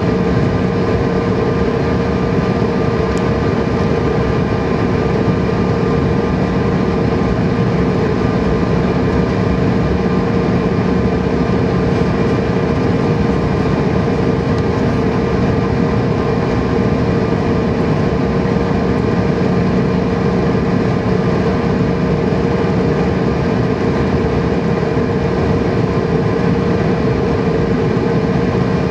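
Inside the cabin of a Bombardier CRJ700NG jet at taxi power: the rear-mounted turbofan engines run at a steady hum with several fixed tones over an even rush. It stays level, with no spool-up yet.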